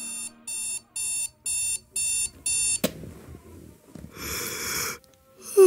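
Electronic alarm clock beeping, six short high beeps about two a second, stopped by a sharp click. A short soft noise follows about four seconds in.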